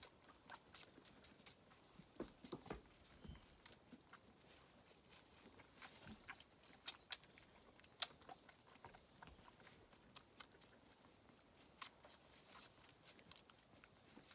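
Faint, irregular clicking and smacking of a lamb suckling milk from a bottle teat, with a few sharper clicks around seven to eight seconds in.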